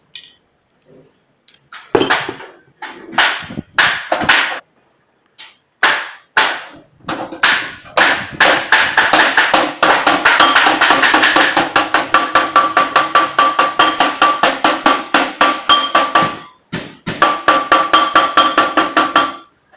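Hammer blows on galvanized sheet metal as the edge of a duct piece is worked against a bench: first a few separate ringing strikes, then a fast run of several blows a second with a metallic ring, a short pause, and another run near the end.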